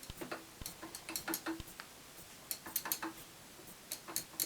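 Irregular sharp clicks and taps, some in quick runs, from the push buttons and fittings of a Westinghouse/EPCO elevator panel being handled and pressed.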